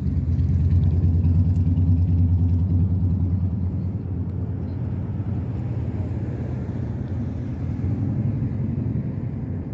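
Low, steady rumble of a motor vehicle's engine close by, starting abruptly and easing slightly after about four seconds.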